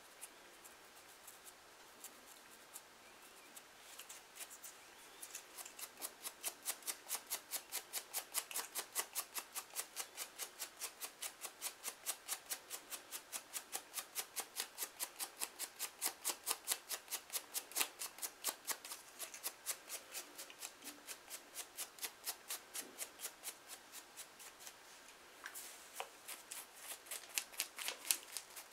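Plastic fine-tooth comb scraping over a dry, flaky scalp in quick, even strokes, about three a second, loosening dandruff flakes. Near the end, fingernails scratch the scalp in a few sharper strokes.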